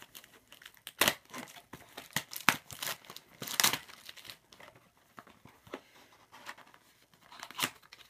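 Packaging of a trading-card box being torn open and handled: crinkling and tearing in irregular bursts, loudest in the first four seconds, with one more tear near the end.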